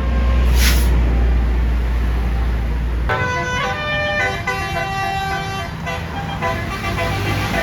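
A low rumble with a brief hiss under a second in, then about three seconds in a bus's basuri 'telolet' multi-tone air horn starts playing a quick melody of changing notes.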